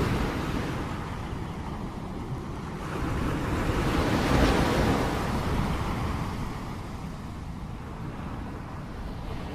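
Rain-storm ambience: a steady rushing, rumbling noise that swells about four seconds in and eases off again.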